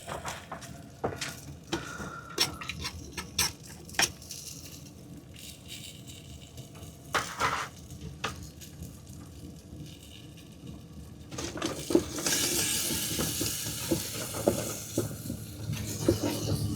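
Onions and garlic sizzling as they brown in a stew pot, with a utensil stirring and clinking against the pot. The sizzle grows louder about twelve seconds in.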